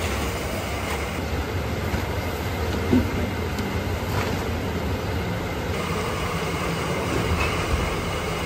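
Steady low mechanical rumble and hum of a working roti shop, its electric pedestal fans and machinery running, with a single knock about three seconds in.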